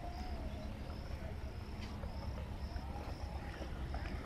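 Cricket chirping steadily, short high chirps about twice a second, over a low steady rumble.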